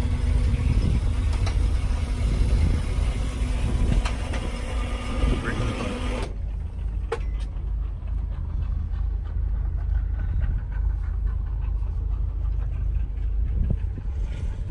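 Boat's engine running with a steady low rumble and hum. A brighter hiss over it cuts out suddenly about six seconds in.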